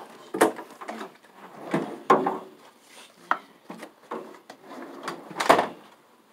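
A series of knocks and clattering bumps as things are handled, several of them sharp, the loudest about five and a half seconds in.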